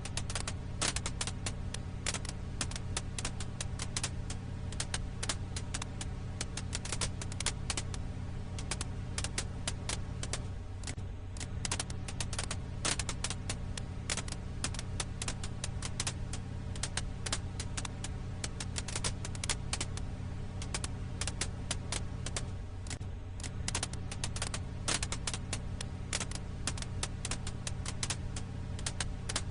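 Crackling wood fire: dense, irregular pops and snaps over a steady low rumble, the pattern repeating about every twelve seconds like a looped recording.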